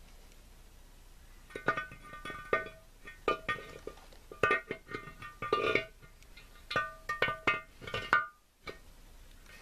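Steel cluster gear of a T-90 transmission knocking and clinking against the metal transmission case as it is worked in dry, each knock ringing briefly. The knocks start about a second and a half in and stop shortly after eight seconds.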